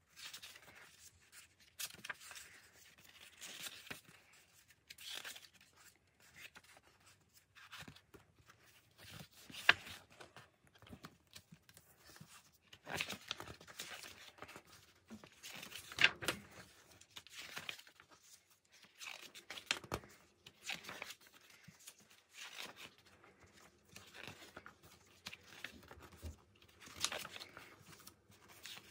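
Glossy pages of a K-pop album photo book being turned by hand: irregular paper swishes and rustles, with two sharper page flaps about ten and sixteen seconds in.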